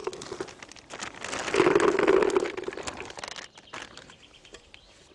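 Boilies rattling and rustling as a hand scoops them out of a plastic bait bucket: a busy run of small clicks, loudest about two seconds in, then tailing off.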